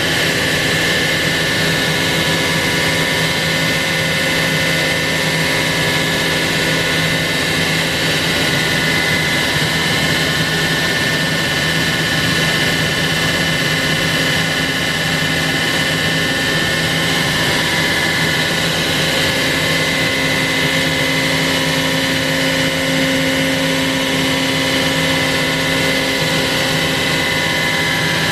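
CNC router spindle milling a wooden guitar neck: a steady high whine over an even rushing noise, unchanging throughout.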